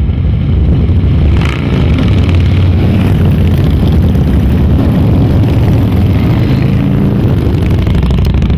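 A pack of cruiser motorcycles riding together, their engines giving a steady low rumble.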